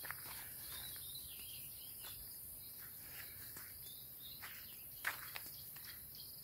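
Faint bush ambience: a steady high insect hiss with a few soft bird chirps, and one light knock about five seconds in.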